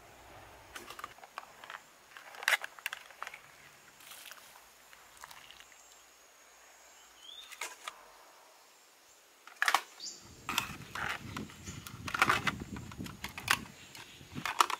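Metal tongs clicking and clinking against a steel pot and hard pen shells as the shells are lifted out of the water and laid on a bamboo tray. The clinks are sparse at first and come thick and fast in the second half.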